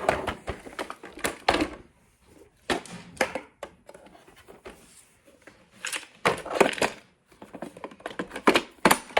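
Hard plastic clicking and clattering in irregular clusters as a robot vacuum's dustbin is handled, opened and put back.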